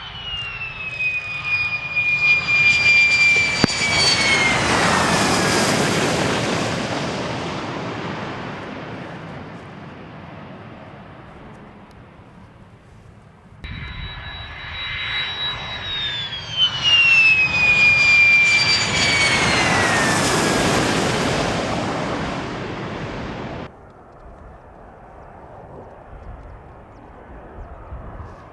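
F-16 fighter jets taking off, two passes one after the other. Each is loud jet engine noise with a high whine that drops in pitch as the jet goes by. After a sudden cut near the end, a Panavia Tornado's engines are heard much fainter as it comes in on approach.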